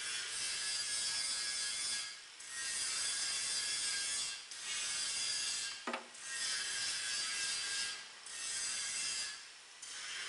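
Repeated hissing bursts from the machine's hand-held hose gun, each about two seconds long with short breaks between, and a sharp click about six seconds in.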